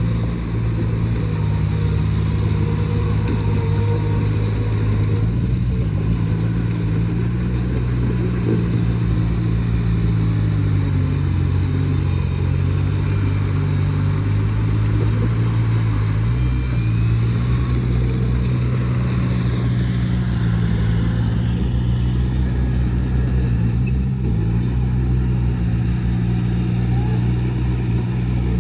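Heavy diesel engine of earthmoving machinery running steadily at working speed, its pitch dipping and rising slightly a few times.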